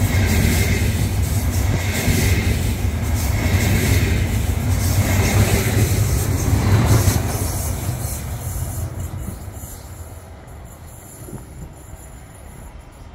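Double Stadler KISS double-deck electric multiple unit departing and passing close by, a low running hum with wheel-on-rail noise that swells and falls in a repeating rhythm. The sound fades steadily from about seven seconds in as the train pulls away.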